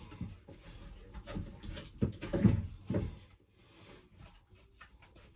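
Handling noise from a plastic shower-drain fitting and its hose being pushed and worked into place, with several louder knocks about two to three seconds in, then quieter rustling.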